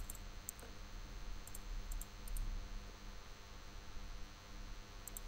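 Computer mouse clicking several times, some clicks in quick pairs, over a faint low hum.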